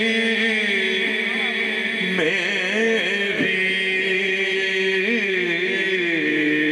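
A man singing a naat, a devotional Urdu poem in praise of the Prophet, into a microphone, holding long wavering notes that slide from pitch to pitch.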